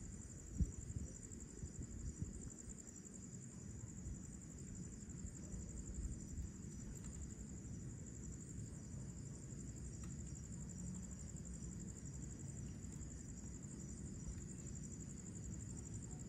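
A steady, high-pitched night chorus of crickets and other insects, over a low rumble. A single soft knock sounds about half a second in.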